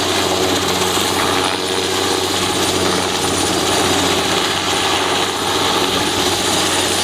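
Sikorsky S-58 crane helicopter running steadily, a continuous rotor and engine drone with a low hum.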